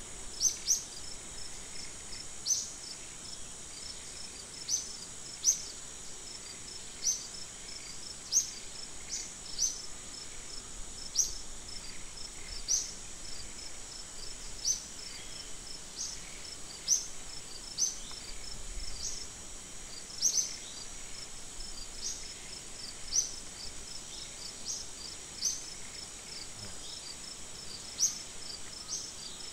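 Outdoor ambience of a steady high insect drone, with short sharp high chirps repeating irregularly every one to two seconds.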